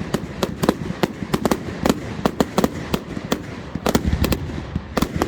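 Fireworks going off in a rapid, irregular barrage of sharp bangs, several a second.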